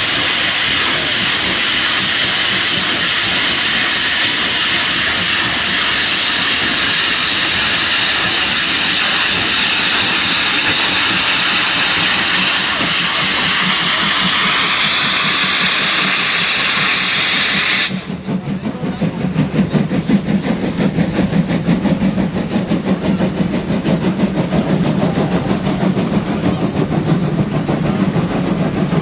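Steam locomotive letting off a loud, steady hiss of steam with faint whistling tones in it, which cuts off suddenly about 18 seconds in. After that the steam train is heard running with a quick rhythmic beat.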